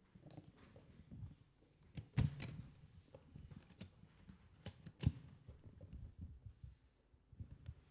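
Quiet room noise in a pause between songs: faint low thuds and shuffling, with two sharp knocks about two and five seconds in.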